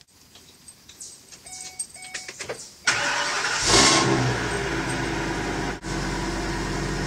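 Ford E450 motorhome engine being started: the starter cranks briefly about three seconds in, and the engine catches with a short rev flare. It then settles into a steady idle.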